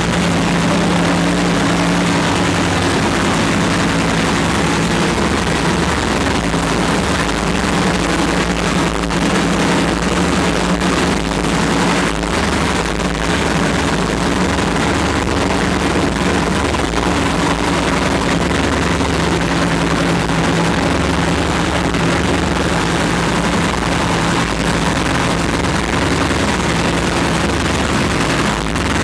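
Freshly rebuilt racing engine running steadily on its first start-up, holding one even speed.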